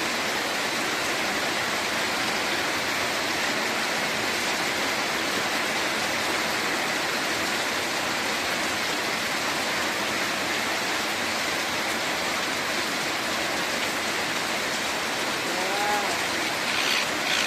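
A steady hiss like falling rain, even throughout, with a few short pitched voice-like sounds near the end.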